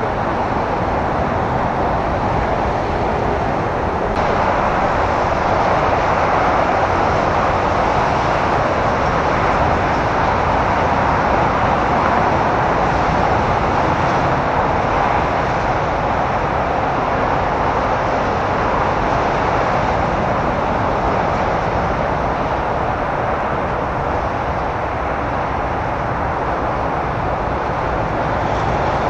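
Steady roar of airliner jet engines: an even rushing noise with no clear rise or pass-by, stepping up slightly about four seconds in.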